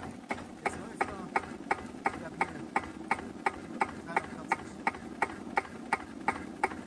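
Cunewalder single-cylinder hopper-cooled diesel stationary engine idling very slowly and evenly, a sharp knock with a short ring at each firing, about three a second.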